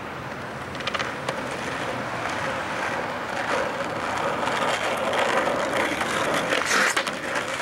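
Skateboard wheels rolling over asphalt, a steady rough rumble that grows louder as the board comes closer, with a couple of sharp clacks about a second in and another near the end.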